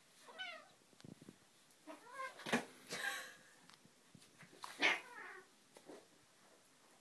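Two cats play-fighting: several short meows and yowls that bend in pitch, mixed with scuffling and soft knocks as they wrestle, loudest about two and a half seconds in and again near five seconds.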